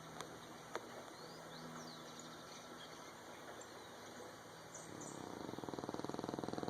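Snoring: a slow, rattling breath that swells up over the last two seconds, after a quieter stretch broken by a sharp click near the start and a few faint high chirps.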